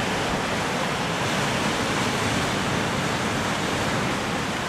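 Sea waves breaking and washing against a rocky shore, a steady rush of surf with no distinct crashes.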